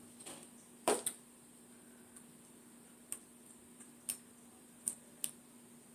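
Scattered sharp clicks and taps of fingers and nails on a small jar of peel-off face mask as its lid and seal are picked at, about six in all, the loudest about a second in.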